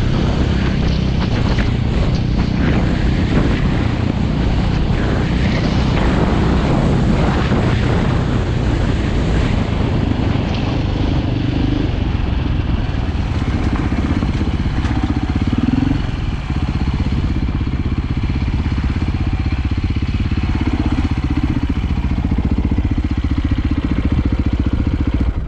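Dirt bike engine running steadily under way on a rough dirt and gravel track, with scattered clicks and knocks from the ride.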